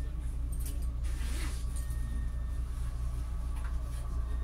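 Steady low hum and rumble inside the passenger car of an Alstom Coradia Lirex X61 electric multiple unit standing still, from its onboard equipment and ventilation.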